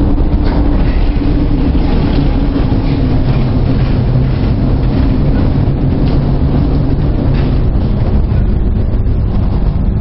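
Loud, steady low rumble with a constant hum, heard aboard a container ship pushing through storm seas: wind, sea and the ship's engine together.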